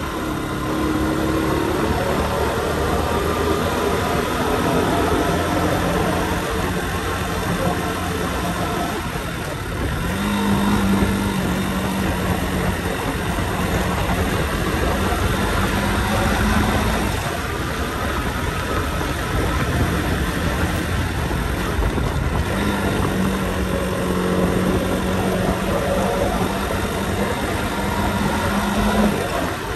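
Motorcycle engine running under way on a winding road, with a steady rush of wind and road noise. Its note settles into a held hum twice, in the middle and again near the end.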